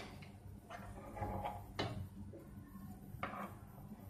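Quiet kitchen: three or four faint light knocks from utensils being handled, over a low steady hum.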